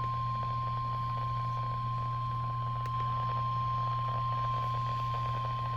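Emergency alert attention tone heralding a severe thunderstorm warning: one steady, high-pitched beep held without a break, over a low steady hum.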